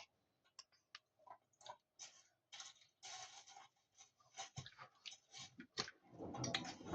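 Samsung washing machine on a cotton wash: faint, irregular short clicks and soft swishes as the drum turns the laundry.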